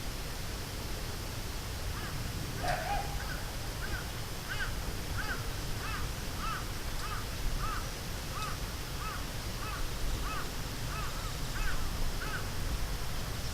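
A bird calling in a long run of short, repeated arched notes, about two a second, over a steady outdoor rumble of running water or wind.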